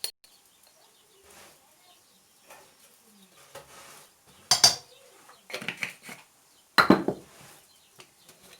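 Kitchen clatter while spices go into a pot: spice containers and a spoon knocking and rattling against the pot and counter, with a rustle of handling. It includes a few sharp knocks, loudest about four and a half and seven seconds in.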